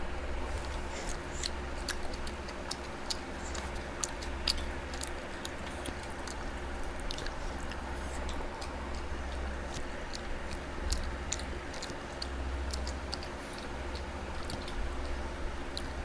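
Close-up chewing and wet mouth clicks of a person eating a meal, many small smacks through the whole stretch, over a steady low hum.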